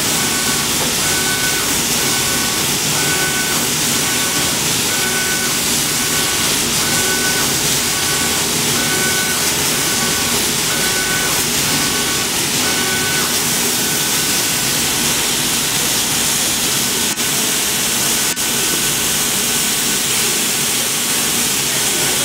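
Laser cutting machine cutting slits in fabric: a steady hiss of its air and exhaust blowers, with a run of over a dozen short tones about every 0.8 s from the motors driving the cutting head back and forth, which stops about halfway through. Two sharp clicks follow a few seconds later.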